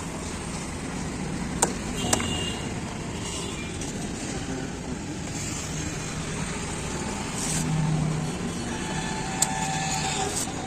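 Steady road traffic noise, with sharp clicks a little under two seconds in and about two seconds in, another near the end, and a faint steady tone just before the end.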